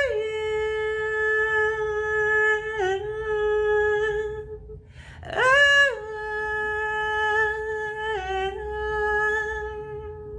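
A single unaccompanied voice humming two long held notes with no words, each dipping briefly in pitch partway through, with a short breath between them.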